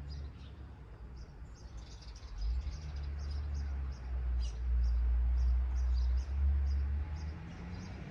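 Small birds chirping over and over in quick, short high notes. Under them a low rumble swells from a few seconds in and dies back near the end.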